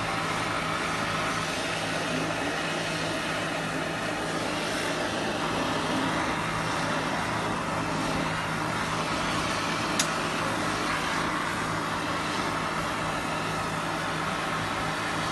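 Hydromax oxy-hydrogen soldering torch flame hissing steadily over a low, even machine hum, with one sharp click about ten seconds in.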